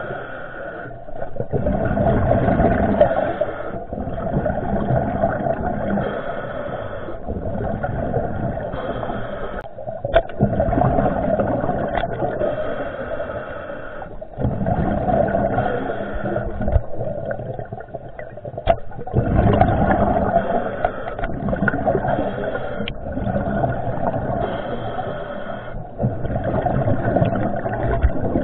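Muffled underwater noise heard through a camera housing: water rushing and rumbling, swelling and easing every few seconds.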